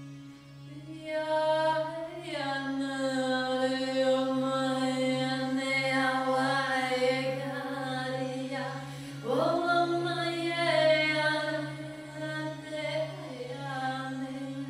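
A woman singing a chant in long held notes, with a quick upward swoop about nine seconds in, over the steady drone of a Heaven and Earth monochord stroked with the fingertips.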